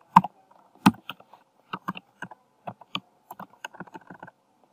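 Typing on a computer keyboard: irregular key clicks, with two louder strokes in the first second.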